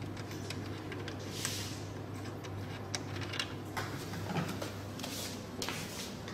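Plastic caps and fittings on a laser hair removal machine's water inlet and vent being handled: scattered light clicks and a brief scrape, over a steady low hum.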